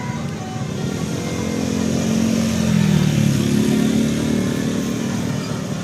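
A road vehicle's engine growing louder as it goes past, loudest about three seconds in, where its pitch drops, then fading a little.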